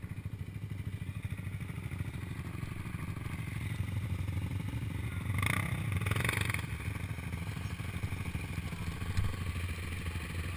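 Quad (ATV) engine idling steadily with an even low pulse. About halfway through, another quad rides past, its engine rising briefly over the idle, and a single knock follows near the end.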